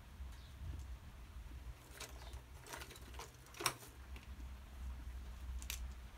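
Pencil working on drawing paper: a few short scratchy strokes, with one sharp tap about halfway through and another brief stroke near the end.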